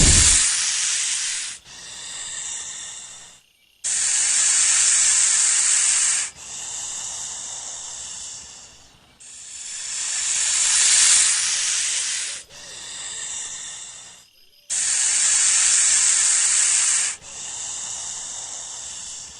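An animal hissing in long breaths: a loud hiss of about two and a half seconds, then a softer one, repeated three times about every five to six seconds.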